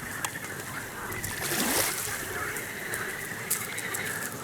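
Water splashing and sloshing, with a louder swish about a second and a half in.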